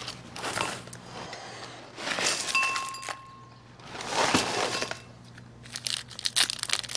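Breakfast-table sounds: spoons clinking in cereal bowls, one short ringing clink, and rustling newspaper pages, then near the end a quick run of crinkling as hands dig into a cereal box.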